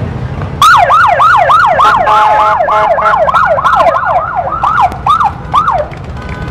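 An electronic siren sounding in a fast yelp, about three sweeps a second, each dropping in pitch. It starts about half a second in and stops near the end. A steady horn-like tone joins it in the middle, over a low rumble of traffic.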